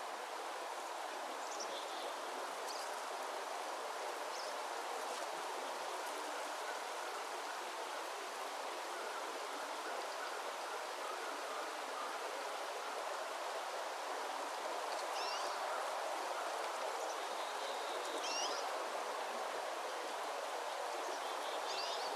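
Forest ambience: a steady running stream with short bird chirps now and then, a few in the first seconds and a cluster of rising and falling calls near the end.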